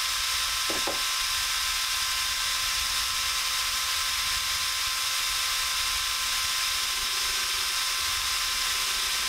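Ryobi corded drill running steadily at speed, spinning a stropping wheel charged with buffing compound while a chisel edge is stropped against it.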